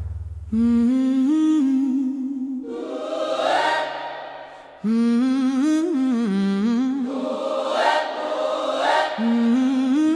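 Music: wordless, choir-like singing in three drawn-out phrases, starting about half a second, just under five seconds and about nine seconds in.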